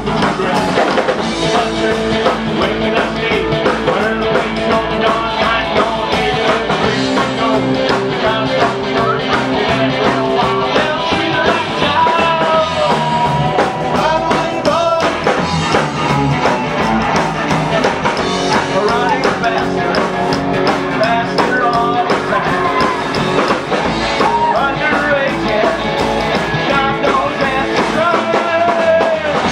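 Rockabilly band playing live and loud: electric guitar from an orange Gretsch hollow-body and a plucked upright bass driving a fast rock-and-roll beat, with some singing.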